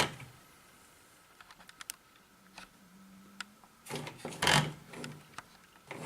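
Plastic parts of a disconnected LED disco light housing being handled and set down: scattered small clicks and taps, with a louder clatter about four seconds in.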